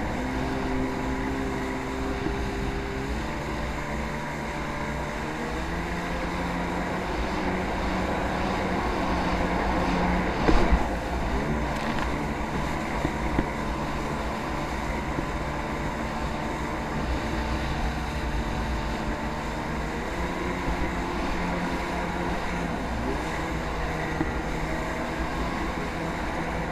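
Jet ski engine running under way, its pitch stepping up and down as the throttle changes, over wind noise on the microphone. A sudden loud hit comes about ten seconds in.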